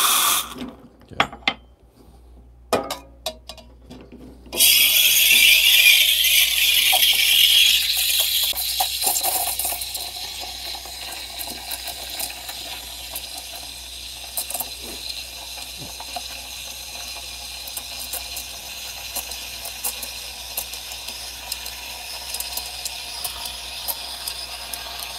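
Espresso machine steam wand steaming milk in a stainless steel pitcher. The hiss starts abruptly about four and a half seconds in and is loudest for the first few seconds, while the milk is being aerated. It then settles into a quieter steady hiss as the milk spins and heats. Before that, the wand's hiss into a cup cuts off, followed by a few clinks of the cup and pitcher being handled.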